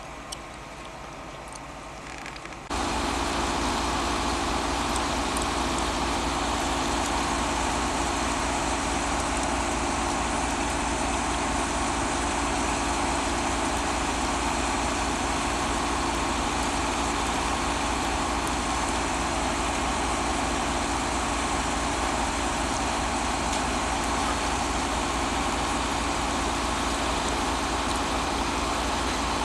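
Diesel engines of a catenary-laying work train running steadily, setting in abruptly about three seconds in.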